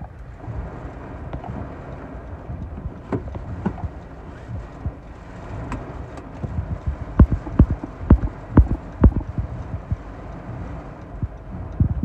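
Torrential rain and strong gusting wind on a car, heard from inside the cabin: a steady rush of rain with irregular low thumps and knocks, which come thicker and louder in the second half.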